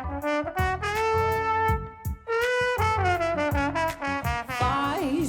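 Instrumental break of a song: a brass melody of held and sliding notes over a steady drum beat and bass, with no singing.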